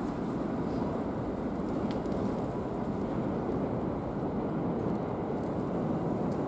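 Kawasaki Zephyr 400χ's air-cooled inline-four engine idling steadily.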